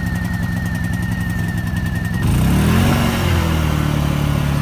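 Honda inverter generator engine running steadily. A little over two seconds in it speeds up, rising in pitch and loudness, then settles at a higher steady speed as the eco-throttle is switched off to run it on high.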